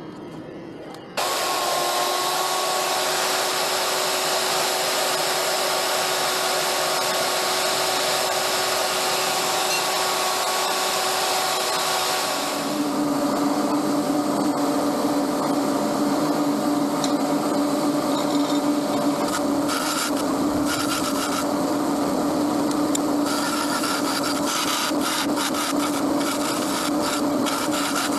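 A small electric band saw running and cutting steel, a steady motor whine over a loud hiss, starting abruptly about a second in. At about twelve seconds it gives way to a small bench belt sander running, with steel pieces ground against the belt in short, irregular scrapes toward the end.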